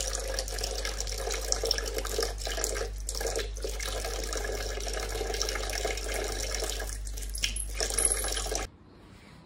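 Kitchen faucet running a thin stream of water into the sink, splashing steadily; the sound cuts off suddenly near the end.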